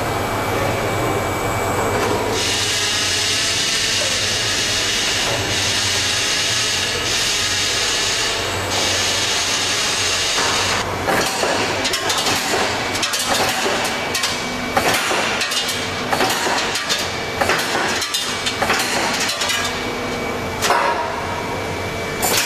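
PUL36 CNC lorry-beam punching line running. For about the first ten seconds there is a steady hiss and rumble, then from about eleven seconds on a run of irregular sharp knocks and clanks as the punching press works the steel beam.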